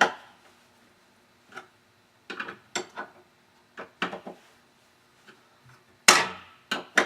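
Screws of an LCN 1460 door closer's arm shoe being tightened with a hand tool: scattered clicks and knocks of tool and metal parts, the loudest about six seconds in. A screw will not bite, which is taken for a stripped screw hole.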